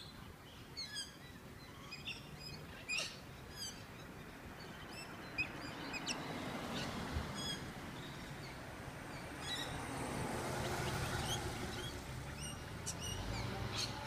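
A flock of galahs and corellas calling, with scattered short, sharp screeches and chirps every second or so. Underneath runs a steady rushing background noise that grows louder about halfway through.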